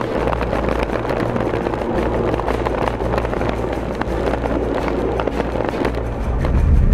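Background music with a steady beat and a bass line that changes every couple of seconds.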